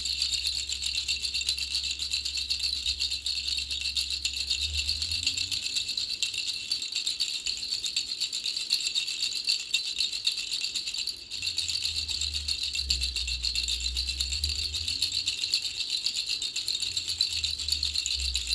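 Baby rattle shaken continuously, a dense high-pitched rattling with a brief break about eleven seconds in.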